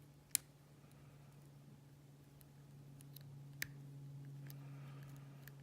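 Faint metallic clicks of a lock pick working the pins inside a Cisa pin-tumbler padlock, with a sharper click about a third of a second in and another about three and a half seconds in.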